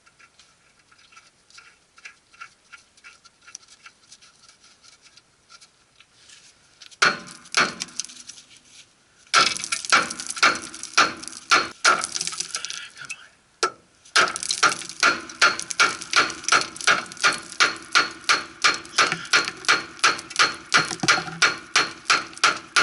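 A hand hammer striking the steel steering linkage, trying to knock a tie rod end free: light taps at first, then heavy blows from about seven seconds in, settling into fast, steady strikes about three a second. The joint is stuck and not budging.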